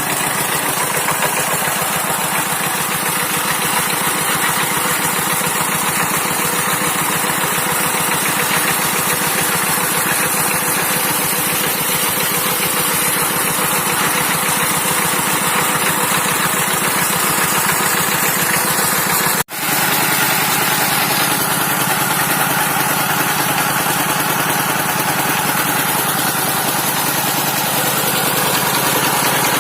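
Dongfeng 12 hp single-cylinder diesel engine running steadily, driving an NS 100 irrigation water pump. The sound drops out for an instant about two-thirds of the way through, then carries on.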